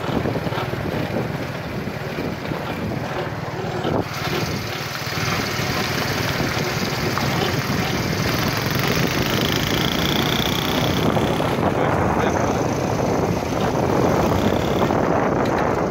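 Wind buffeting the microphone, a steady rushing noise with no engine note.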